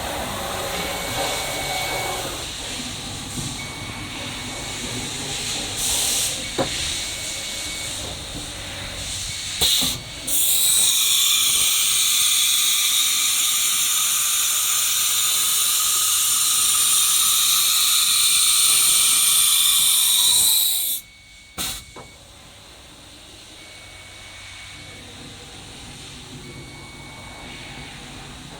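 A CNC router at work. About ten seconds in, a loud, steady hiss starts; it runs for about ten seconds and cuts off suddenly. Quieter machine noise follows.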